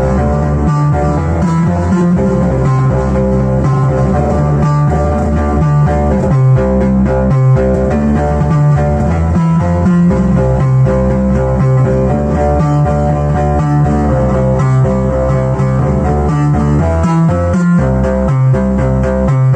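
Synthesizer music from Behringer MS-1 and Pro-1 analog synths, run through a Behringer Virtualizer Pro DSP2024P effects processor. Short repeated notes play over a steady, sustained bass line, loud and without a break.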